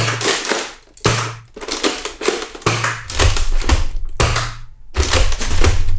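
Nerf Zombie Strike Ripchain dart blaster being primed and fired over and over: five sharp plastic clacks and pops about a second apart. From about halfway, the slide and the belt of darts rattle between the shots.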